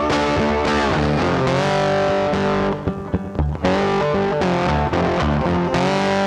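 Background music led by guitar, with sustained sliding notes, thinning out briefly about three seconds in.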